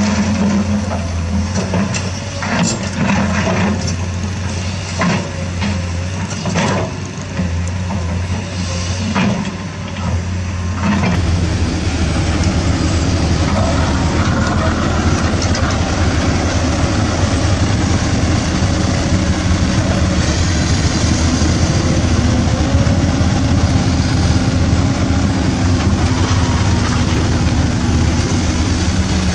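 Remote-control toy dump truck's engine sound, a steady low truck-engine hum. It is broken by scattered clicks in the first ten seconds or so, after which the sound turns into an even, denser noise.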